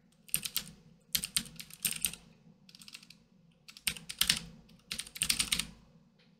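Computer keyboard typing in several quick bursts of keystrokes with short pauses between them, as a search term is entered.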